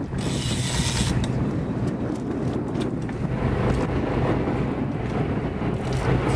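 Boat motor running steadily in a low hum, with wind buffeting the microphone and a burst of wind hiss about a second in.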